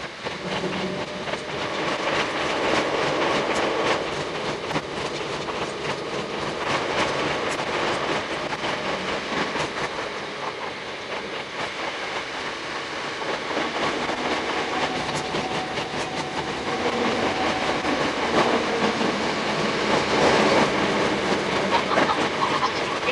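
Hakone Tozan Railway 2000 series electric train running on the rails, heard from inside the front car. Steady running noise with rapid clicks from the wheels.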